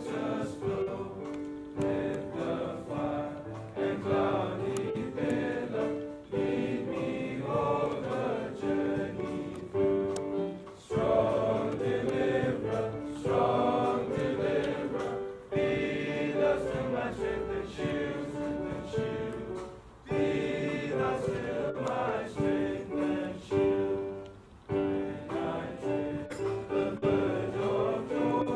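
A large choir of schoolboys singing a hymn together. They sing in phrases a few seconds long, with brief pauses for breath between them.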